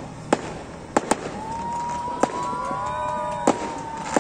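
Fireworks bursting over town: about six sharp bangs, with whistling tones that bend up and down through the middle.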